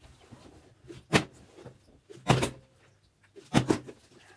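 Plastic bottles being flipped and knocking down onto a tabletop, three times about a second apart. Each landing is a quick clatter of two or three strikes as the bottle bounces.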